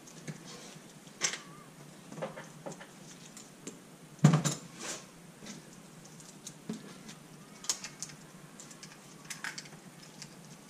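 Metal parts and bolts clinking and knocking against a motorcycle engine's casing as they are handled and fitted, in scattered irregular clicks, with one louder knock about four seconds in.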